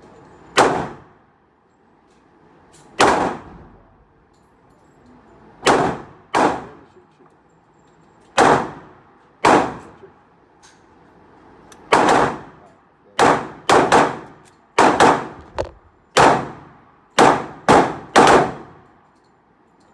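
Gunshots at a shooting range: about eighteen sharp shots at irregular intervals, each with a short echoing tail, coming faster and in quick runs in the second half.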